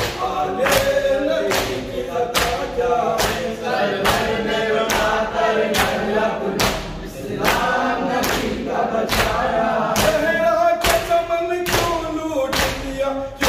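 Men's voices chanting a nauha together, broken by the sharp slap of open palms beating on chests in unison (matam), a little more than one stroke a second in a steady rhythm.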